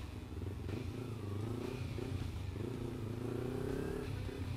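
Kawasaki Ninja motorcycle engine running at low revs while the bike rolls slowly along, its pitch wavering a little up and down.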